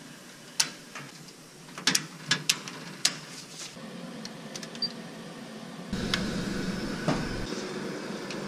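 Circuit breakers being snapped on in a breaker panel: a series of sharp clicks over the first few seconds. About six seconds in, a steady electrical hum comes on.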